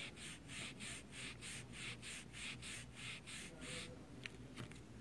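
Cheesecloth pad soaked in MEK rubbed back and forth over an inorganic zinc ethyl silicate primer on a sample plate: a soft, faint scrubbing with each stroke, about four strokes a second, as the coating's cure is checked by solvent rub (ASTM D4752). The rubbing stops about four seconds in, followed by a few light ticks.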